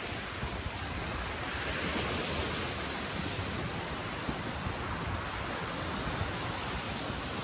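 Steady rushing noise of surf and wind at the seashore.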